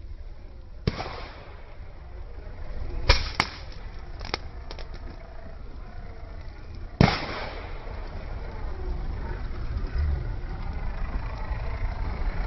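Firecrackers going off: a sharp bang about a second in, a louder pair of bangs around three seconds with a smaller pop after, and another loud bang around seven seconds, each trailing off briefly.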